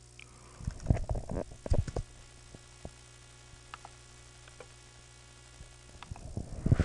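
A steady low hum with a burst of loud knocks and thumps about a second in, a few single clicks after it, and more knocking near the end.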